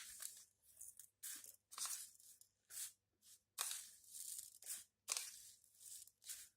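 Dry flaxseeds being scooped up and poured by the spoonful: a faint series of about a dozen short, irregular rustles and sprinkles.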